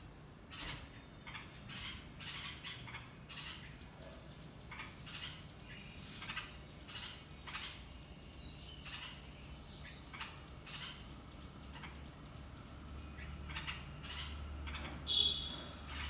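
Red-vented bulbuls at the nest giving short, high chirps again and again at an uneven pace, the loudest a sharp chirp near the end. A low steady hum underneath grows louder in the last few seconds.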